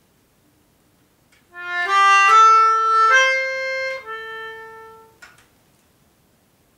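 Melodica played through its blow tube: a short motif of five reedy notes that step upward four times and then drop back one step, ending on a longer held note.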